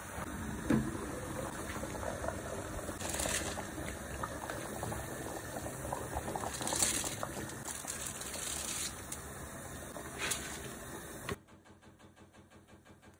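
Spiced meat broth boiling in a wide pot on a gas stove, with a few short rushing splashes as soaked rice is poured into the liquid. The boiling stops abruptly near the end, leaving near quiet.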